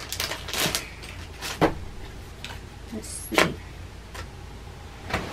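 Wrapping being handled and crinkled in about six short rustles while a hair pin is taken out of its packaging.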